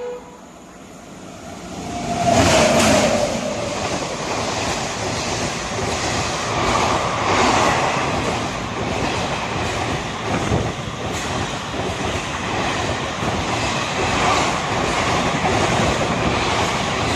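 WAP7 electric locomotive and its express train passing close by: a loud rush about two seconds in with a tone falling in pitch as the locomotive goes past, then the coaches rumbling and clattering by.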